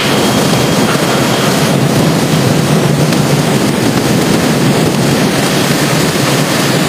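Steady rush of churning, bubbling water and running machinery from an industrial cabbage washing line's air-bubble wash tank.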